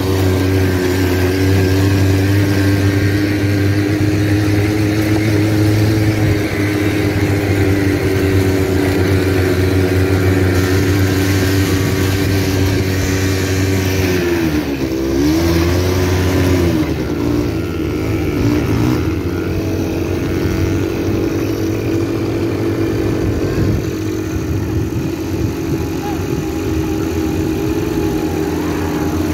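Quad bike (ATV) engine running at a steady speed while riding. About halfway through, its pitch dips and climbs back as the throttle is eased and reopened.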